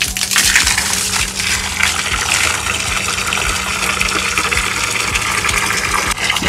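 Water gushing steadily from a hose onto plants, a continuous rushing hiss.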